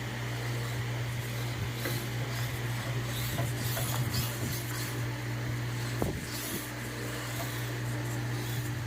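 Light rubbing and scattered small clicks of hands handling a small plastic RC truck body, over a steady low hum. There is a sharper click about six seconds in.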